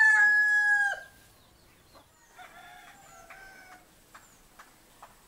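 Rooster crowing: a loud crow held at one pitch ends abruptly about a second in, followed by a fainter crow a second or so later. A few faint clicks and small, high bird chirps follow.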